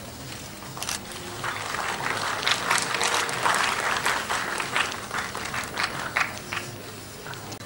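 Audience applauding, building up about a second and a half in and dying away near the end.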